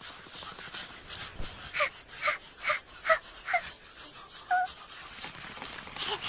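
Small dog-like creature panting in quick short breaths, about two to three a second, followed by a brief high whimpering yip about four and a half seconds in.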